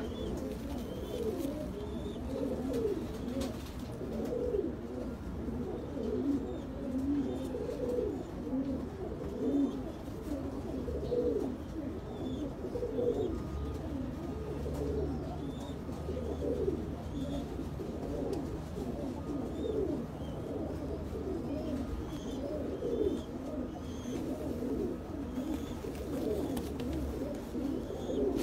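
Domestic pigeons cooing continuously, several voices overlapping without pause.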